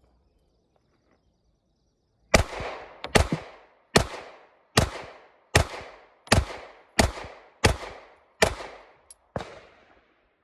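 A Glock 43 9mm pistol fires about ten shots in steady succession, roughly one shot every three-quarters of a second, each crack trailing off in a short echo.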